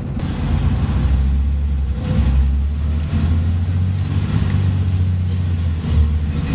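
A Scania N94UB bus's five-cylinder diesel engine pulling hard after an automatic-gearbox kickdown, heard from inside the passenger saloon. It is a loud, low drone that rises in pitch and strength, with a short dip near the end.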